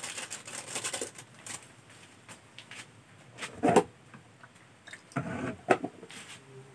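Kitchen handling noises: quick taps of a spoon against a small plastic bowl, then a louder plastic clack about three and a half seconds in as the lid comes off a plastic water container, and more plastic knocks a couple of seconds later as a cup is dipped in and the lid pressed back on.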